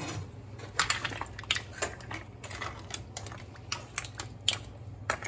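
Metal spoon stirring a pan of seafood stew with mussels in it, giving irregular clicks and scrapes against the pan and shellfish, over a steady low hum.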